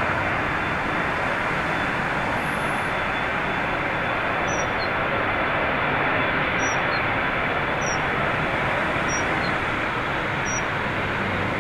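Airbus A380's jet engines running with a steady roar as the airliner rolls along the runway, mixed with gusty storm wind.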